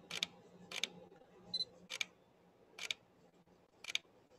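A camera shutter firing about five times at irregular intervals of roughly a second, as tethered headshot frames are taken.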